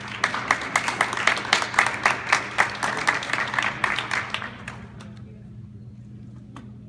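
Small audience applauding, with one person clapping close by at about four claps a second; the applause dies away after about five seconds.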